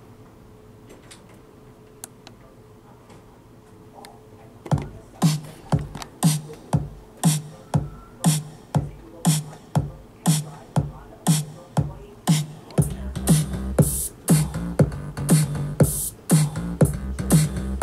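Electronic drum beat played back by a Native Instruments Maschine Mk3 demo project. After a quiet start, a steady kick-and-hi-hat pattern begins about five seconds in, at about two beats a second. A deep bass line joins about thirteen seconds in.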